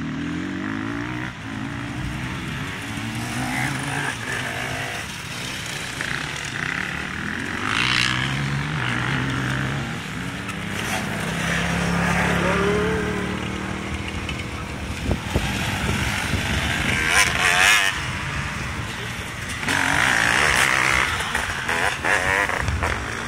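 Enduro dirt bikes racing along a dirt track, their engines revving up and down as the riders approach and pass, with several louder swells.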